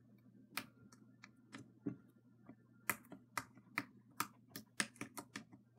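Dark green slime being poked and squeezed with the fingers, giving an irregular series of small crisp clicks and pops, about fifteen in all.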